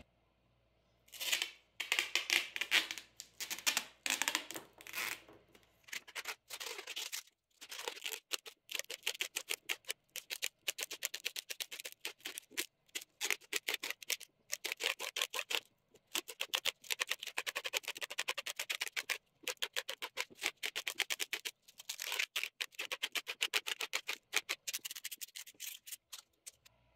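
Clear packing tape being pulled off its roll and wound around a wooden mug blank. It comes in several long pulls with short pauses between, each a rapid crackle.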